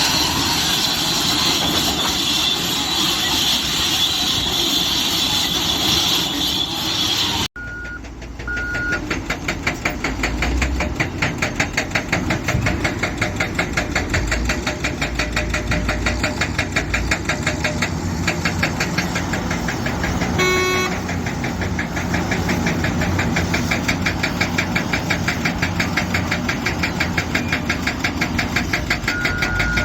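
Heavy diesel machinery running, with a fast, even engine pulse and a low rumble. Short beeps sound soon after an abrupt change about seven seconds in and again near the end, and a brief horn-like tone comes about twenty seconds in.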